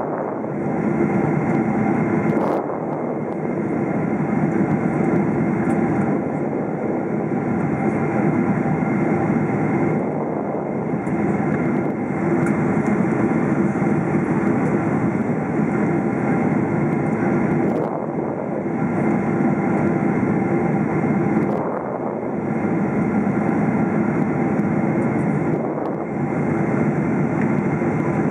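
Cabin noise of a Boeing 777-300ER on approach: a steady drone of airflow and its GE90 turbofan engines, with faint steady tones running through it and the level dipping briefly a few times.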